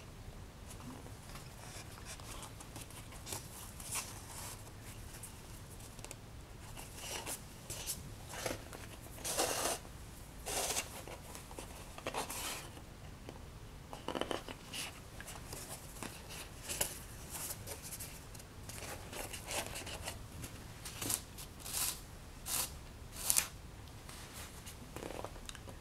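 Black linen thread pulled through the sewing holes along the fold of a black Stonehenge paper signature during hand sewing of a book, in a series of short, irregular pulls, with the paper rustling as it is pressed flat and handled.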